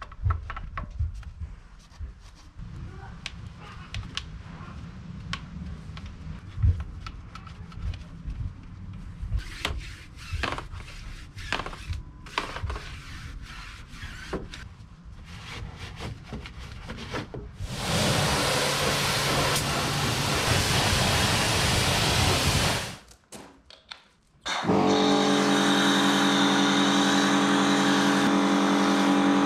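Pressure washer with an Alchimie 7 Venturi foam lance at work for the pre-wash. Scattered knocks and clatter come first, then from a little past halfway a loud spraying hiss for about five seconds. After a brief drop, the pressure washer's motor and pump run with a steady whine.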